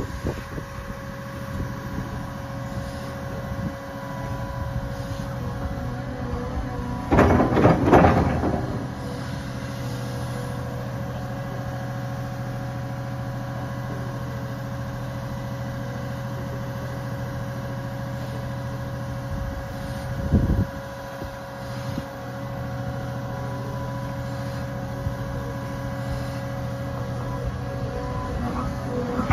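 Caterpillar hydraulic excavator's diesel engine running steadily as the boom and bucket move. A louder rush of noise comes about seven seconds in, lasting about a second, and a short low thump comes about twenty seconds in.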